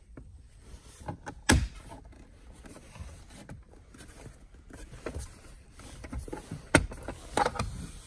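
Plastic center console side trim panel of a Lexus IS being pulled off by hand: a few sharp snaps as its retaining clips pop loose, the loudest about a second and a half in and another near the end, with lighter clicks and plastic handling rattle between them.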